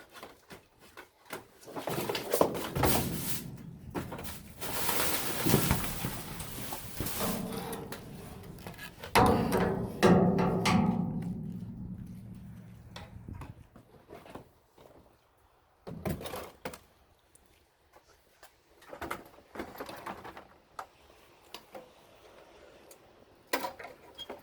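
Irregular thuds and clatter with a stretch of rustling, and one loud bang about nine seconds in that rings on and dies away over a few seconds, like a metal dumpster being rummaged and struck.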